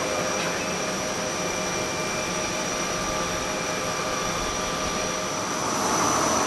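Steady cockpit noise of an Airbus A350 airliner: an even rush of air and ventilation with several faint constant whines, getting a little louder near the end.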